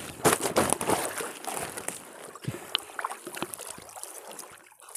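Wet fishing net being hauled by hand into a small boat, water dripping and splashing off the mesh. The loudest rush of rustling and splashing comes in the first second, followed by quieter drips and small ticks.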